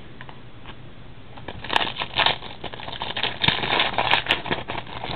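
Trading-card packs and cards being handled, crinkling and crackling in a dense run of small clicks and rustles that starts a little under two seconds in and stops just before the end.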